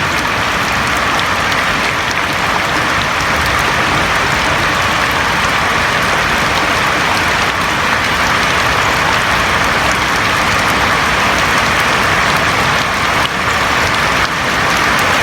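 Steady heavy rain falling on a roof, an even dense patter with no let-up.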